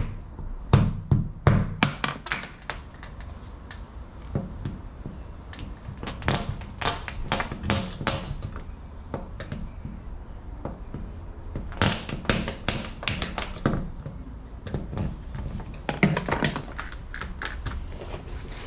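Hand tools clicking and knocking against a uPVC door frame as the glazing beads are prised out to free the glass panel. The sound comes in four bursts of quick, sharp taps with pauses between.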